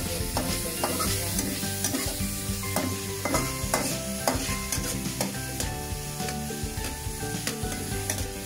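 Ground pork sizzling in a steel wok while a metal spatula scrapes and stirs it across the pan, about two strokes a second. The meat is frying on its way to golden brown.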